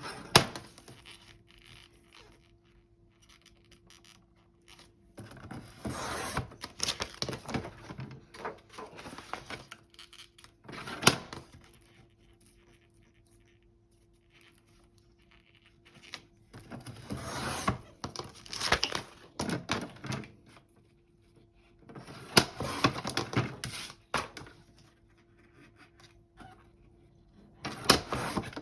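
Glossy printed paper being cut to size, in several bursts of crisp cutting and paper-handling noise a few seconds long with quiet pauses between, and a sharp snap about eleven seconds in.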